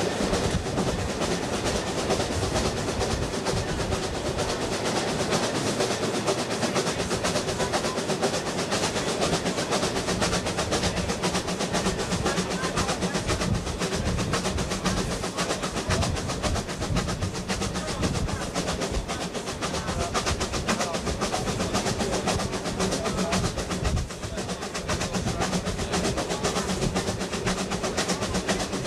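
Queensland Railways A10-class steam locomotive No. 6 running along the line, heard close up from its tender: a steady, fast clatter of exhaust beats, running gear and wheels on rails.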